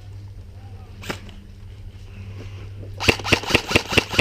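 Airsoft guns firing: a single shot about a second in, then a quick string of about five shots near the end. A steady low hum runs underneath.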